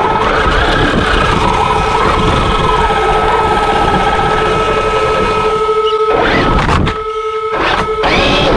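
Traxxas X-Maxx RC truck's brushless electric motor whining as the truck pushes snow with a plow blade, its pitch gliding up and down with speed, over the scrape and crunch of snow and tyres. Near the end the motor spins up in two short rising whines as the blade pushes against a car bumper.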